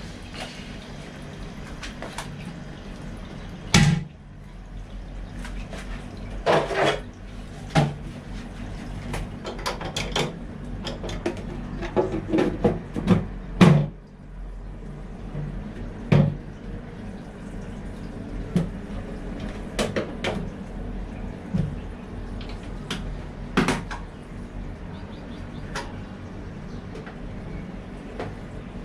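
Toilet cistern lid being handled and set back on the tank: a series of knocks and short scraping clatters, a sharp one about 4 s in and a cluster around the middle, over a steady low hum.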